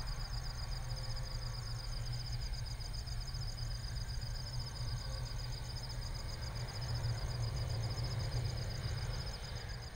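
Night insects, crickets by their sound, trilling in a fast, even pulsing chorus over a steady low rumble, fading out near the end.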